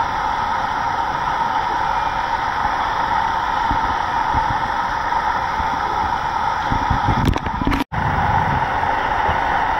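Steady outdoor background hiss and hum, with a few low buffets of wind on the microphone about seven seconds in and a momentary dropout at an edit just before eight seconds.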